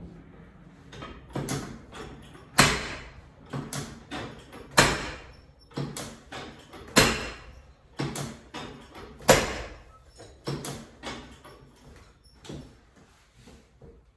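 Chiropractic drop table sections dropping under hand thrusts on the patient's back: a run of sharp mechanical clacks, the four loudest about two seconds apart, with lighter knocks in between.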